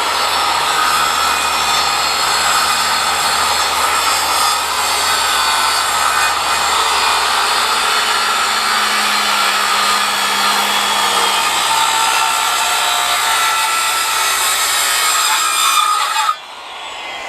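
Electric power saw running steadily as it cuts a deck board along a marked line. About 16 seconds in the motor cuts off and the blade spins down with a falling whine.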